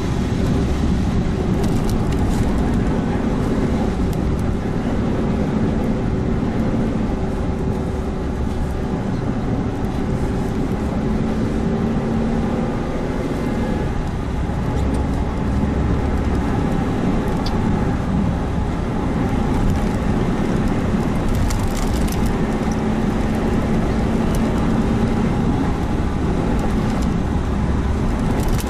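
Suzuki Jimny Sierra on the move: steady engine drone under constant road and tyre rumble, its pitch easing down and coming back up slightly as the throttle changes.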